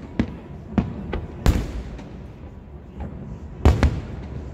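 Aerial firework shells bursting: a string of sharp booms, the loudest about one and a half seconds in, with a quick pair close together near the end.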